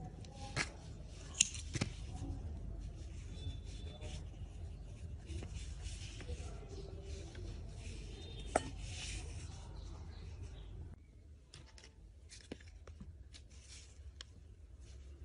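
Close handling noise of crochet work: yarn and crocheted fabric rubbing under the fingers, with a few sharp clicks or taps. A low background hum drops away about eleven seconds in.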